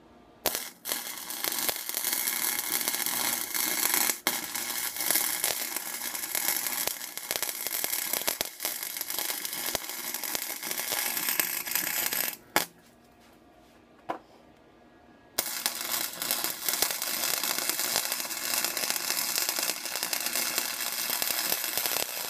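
Electric arc welder running a bead without shielding gas, the arc crackling steadily. It runs for about twelve seconds, stops for about three, then strikes again for a second run of about seven seconds.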